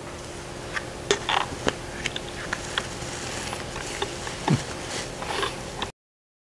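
Quiet room tone with a faint steady hum and scattered small clicks and rustles of handling. The sound cuts off to silence about six seconds in.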